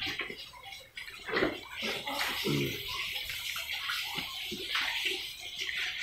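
A group of young pigs eating feed off a concrete floor: continuous wet chomping and snuffling, with a couple of short grunts in the first half.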